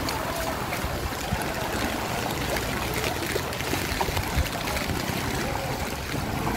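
Steady wash of water noise from rain and floodwater on a flooded street, with small scattered ticks.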